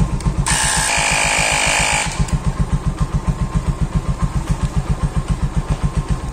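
ResQTech portable tyre inflator's compressor pumping air into a motorcycle tyre with a fast, even beat of about eight strokes a second. There is a loud hiss of air for about a second and a half, starting half a second in.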